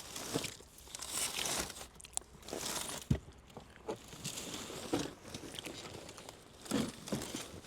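Crinkling and rustling of plastic snack packaging being handled, with a few sharp knocks, the loudest about three seconds in.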